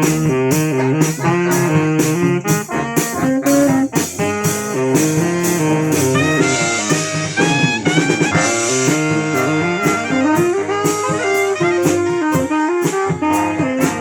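Brass band playing a song with a drum kit keeping a steady beat under horn melody and bass lines. A higher horn line with rising slides stands out in the middle.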